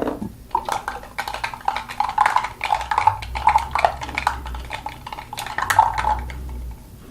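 Runny homemade slime being stirred and worked, a quick run of wet squelching clicks that goes on for several seconds. A knock sounds just at the start.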